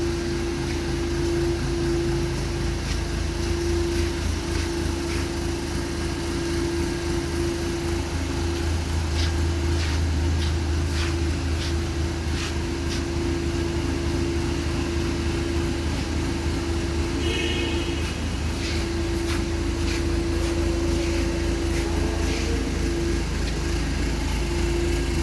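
JAC N56 truck's 2.8-litre turbodiesel engine idling steadily, with a constant low rumble and a steady hum, and a few faint clicks here and there.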